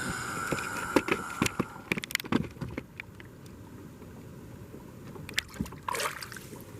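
Kayak fishing handling sounds: a steady whine for about the first second and a half, then scattered sharp clicks and knocks against the kayak.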